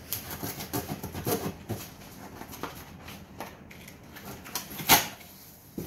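Knife cutting through packing tape on a cardboard box: irregular scraping and crackling, with one sharp, louder crack about five seconds in.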